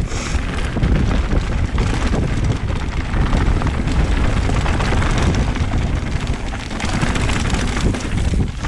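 Mountain bike rolling down a rough dirt trail: wind rushing over the camera microphone, with a constant rattle and rumble from the bike and tyres over the bumps.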